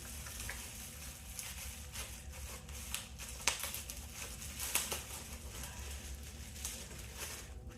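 Small handling noises: faint crinkling and rustling with scattered light clicks and taps, most noticeable around the middle, as packaging and a small product jar are handled.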